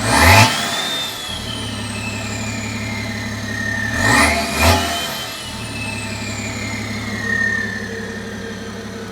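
Tuned turbodiesel car engine idling and being blipped twice, about four seconds apart. Each rev brings a high turbo whistle that climbs sharply, then slowly winds down as the engine drops back to idle.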